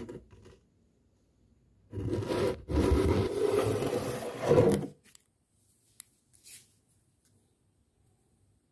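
Rough rubbing and scraping noise: a short patch at the start, then a longer one from about two seconds to five seconds in. After that it is almost quiet, with a single faint click.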